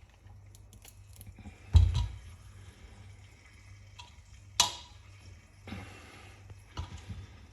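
Kitchen handling sounds while butter is spooned into crushed potatoes: one heavy thump about two seconds in, then a few sharp clicks of a utensil against dishware, over a low steady hum.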